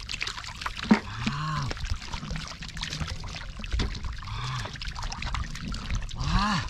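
Water sloshing and splashing as hands work through shallow muddy water for fish, with a sharp splash or slap about a second in. A man's short wordless exclamations break in a few times.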